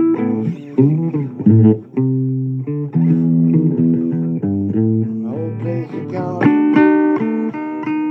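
Instrumental break in a blues song: guitar playing single-note lines over bass guitar, with no singing. Short plucked notes give way to longer held notes about six and a half seconds in.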